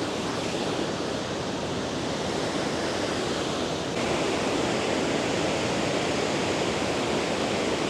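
Steady rushing of a large waterfall, a little louder from about four seconds in.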